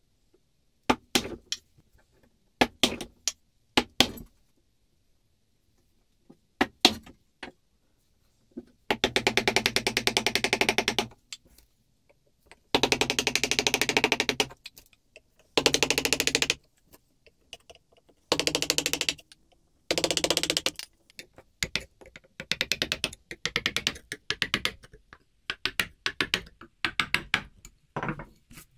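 A steel chisel cutting into a beech block: a few sharp knocks in the first seconds as it chops in at the line, then a series of dense, crackling paring strokes of one to two seconds each as the blade shaves out wood chips.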